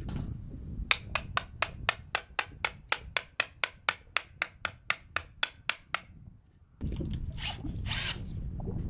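Hammer driving a nail into a wooden fence picket: a quick, even run of about twenty strikes, about four a second, then a brief scraping rustle.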